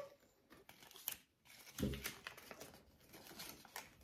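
Faint crinkling and small clicks of plastic toy packaging being handled and opened, with a soft thump about two seconds in.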